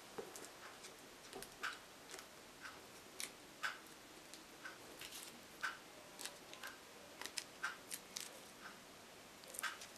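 Faint, irregular small clicks and ticks, about two a second, of fingernails picking at the protective film on a replacement tablet touchscreen and of the glass and plastic being handled.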